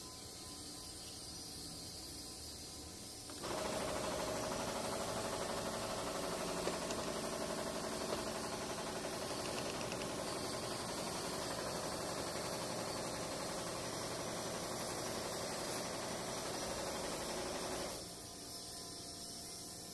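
Steady hiss-like workshop background noise that grows much louder about three seconds in and drops back near the end, with a few faint knocks of metal parts being handled.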